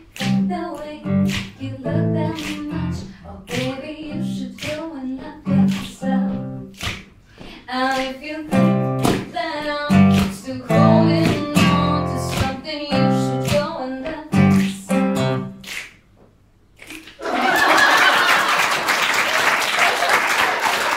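Acoustic guitar played fingerstyle, single plucked notes and chords, closing out a pop song and stopping about three-quarters of the way through. After a brief pause, applause breaks out and continues.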